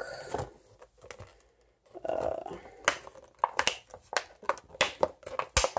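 Hands pulling open a small clear plastic blister pack: a short crinkle, then a quick run of sharp plastic clicks and crackles, loudest near the end.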